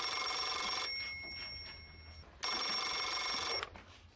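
Telephone bell ringing twice, each ring lasting about a second with a pause between: an incoming call, answered shortly after.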